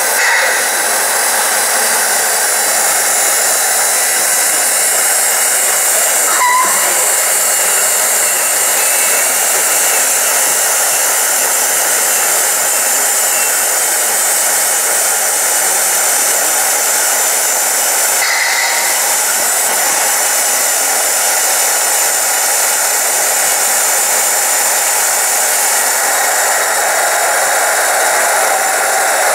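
The hydraulic pump of a 1/14 scale R/C tipper truck running without pause as the dump body is raised to tip its load, a loud, even rushing noise.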